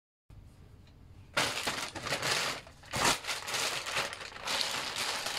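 Close, dense crinkling and rustling of something being handled near the microphone. It starts suddenly about a second and a half in and carries on, with a sharper knock about three seconds in.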